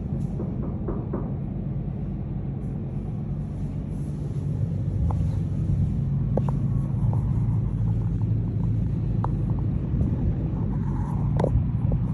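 Steady low rumble and hum of a cruise ship's machinery during docking, growing a little louder about five seconds in, with a few faint short chirps or clicks over it.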